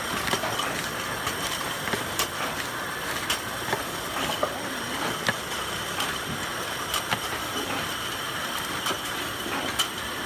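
Sticker-applicator machines at work: steady machine noise with a faint high whine, and sharp mechanical clicks about once a second at uneven spacing.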